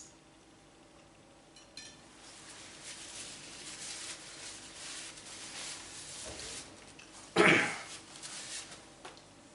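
Close-up eating sounds: chewing and mouth noises over several seconds while a man eats grilled lamb skewers. There is a click at the start, and a single short loud burst about seven and a half seconds in.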